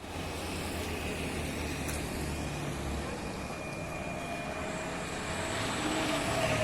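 Heavy truck engine running steadily, a low hum strongest in the first few seconds and picking up again near the end, over road noise.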